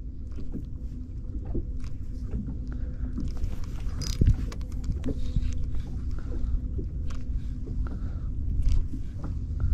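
Low rumble of water against a small boat's hull, with scattered light knocks. About four seconds in there is a sharper click as the spinning reel is handled.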